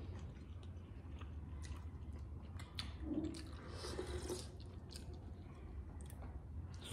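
Faint chewing of soupy momo dumplings, with a wet slurp about three to four seconds in as soup is drunk straight from a plate. A steady low hum runs underneath.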